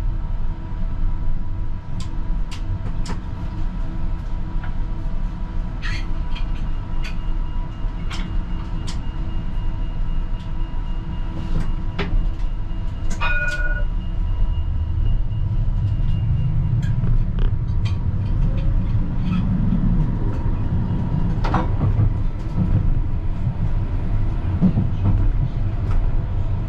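Cab interior of a CAF Urbos 100 tram in motion: a steady low running rumble with a faint electrical hum, scattered light clicks and a short tone about halfway. In the second half the rumble grows as the tram picks up speed along the track.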